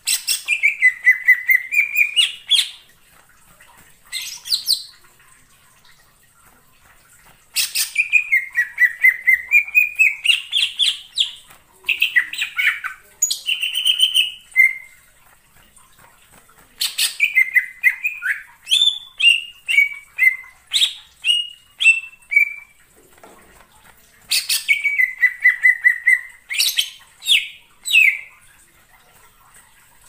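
Cucak ijo (green leafbird) singing: loud phrases of rapid, repeated whistled notes that sweep down and up in pitch. There are about six phrases, each one to four seconds long, with short pauses between them.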